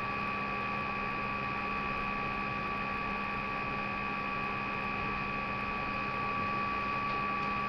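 Steady hiss with a constant electrical hum and a thin steady whine; no distinct events.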